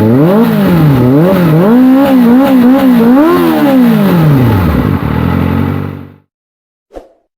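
Kawasaki Ninja ZX-25R's 249 cc inline-four revved through an SC Project long (470 mm) slip-on exhaust: several quick blips up and down, then one longer rev that falls back toward idle. The sound cuts off about six seconds in, followed by a faint click near the end.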